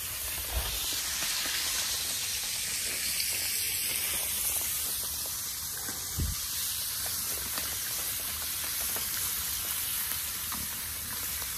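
Salmon frying in hot oil in a pan on a camp stove: a steady sizzle, with two soft knocks, one about half a second in and one about six seconds in.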